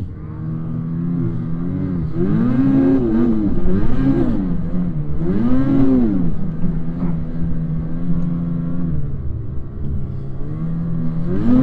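Snowmobile engine under throttle while riding through snow, revving up and down several times in the first half, then holding a steady pitch before rising again near the end.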